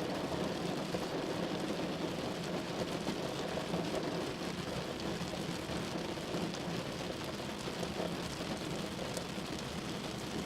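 Heavy rain falling steadily, a dense even hiss with fine drop ticks.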